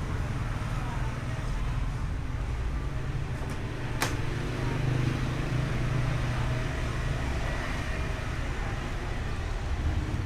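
Steady low background rumble, with a single sharp click about four seconds in.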